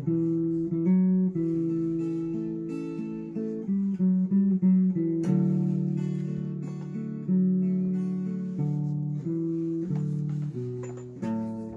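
Music played on a plucked string instrument: a slow melody of single notes and strummed chords, each note striking sharply and then fading.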